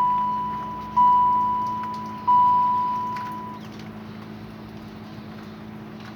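A Chevrolet Corsica's warning chime sounding three times, each a clear single-pitched ding that fades out, about a second and a quarter apart, then stopping. A steady low hum continues underneath.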